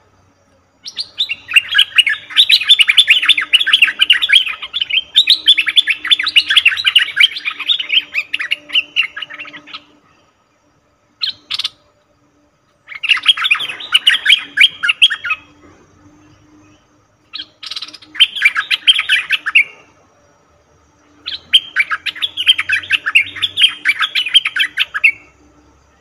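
Bulbul singing in bouts of rapid, chattering notes: one long bout of about nine seconds, then a short burst and three shorter bouts of two to four seconds, with pauses between.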